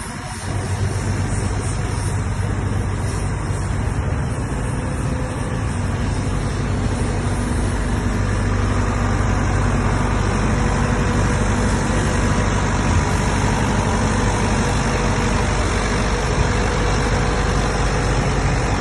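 Caterpillar 422E backhoe loader's diesel engine running steadily, getting a little louder after about six seconds.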